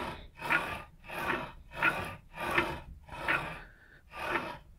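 Ball-bearing blocks of 25 mm Staf linear rails rolling as an aluminium plate is pushed back and forth by hand, a short rolling swish on each stroke, about seven strokes in quick succession.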